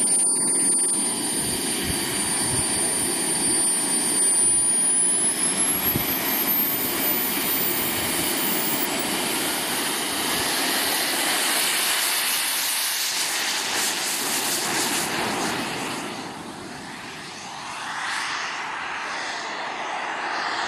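Wren 54 model jet turbine on an RC Space Shuttle whining steadily, then spooling up about four seconds in with a high whine that climbs in pitch for several seconds as the throttle opens for take-off. It settles into a steady jet roar as the model climbs away, fading briefly near the end before swelling again as it passes back.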